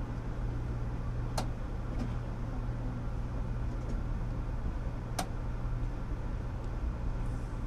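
Steady low hum and rumble inside a passenger train car as it stands and starts to creep out of a station, with two sharp clicks about four seconds apart.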